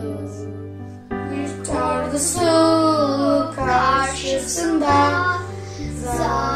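Children singing a song in Turkish together over an instrumental backing track, its bass notes changing about once a second.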